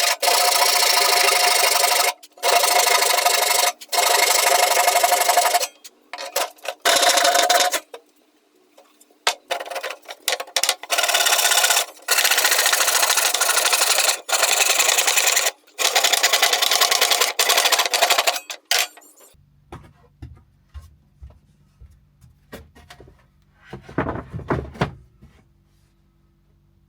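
Handsaw cutting pine slats by hand, in loud rasping passes with short breaks between them. It stops about 19 seconds in, leaving faint knocks over a low hum.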